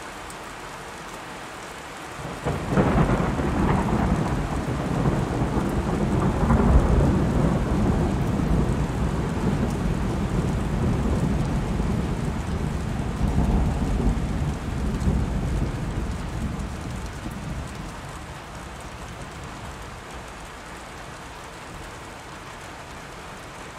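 Steady rain with a long roll of thunder. The thunder breaks in suddenly about two seconds in and slowly rumbles away over some fifteen seconds, leaving the rain.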